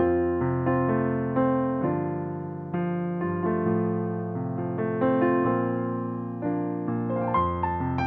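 Solo piano improvisation played on a keyboard: slow held chords, a new one struck every second or so and fading before the next.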